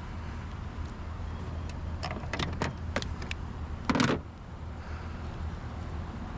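Clicks and knocks of fishing gear being handled in a kayak, a quick run of them about two to three seconds in and a louder noisy burst about four seconds in, over a steady low rumble.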